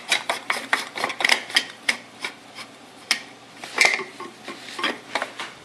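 Reservoir-and-pump radial bracket hardware being worked by hand: a quick run of rasping, scraping strokes, about four a second, that thins out about two seconds in to a few separate clicks and scrapes.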